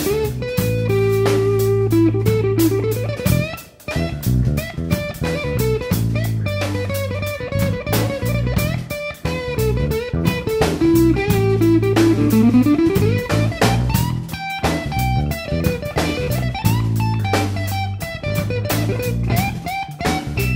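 Background music: electric guitar playing over bass and a steady drum beat, with the guitar sliding up in pitch in places.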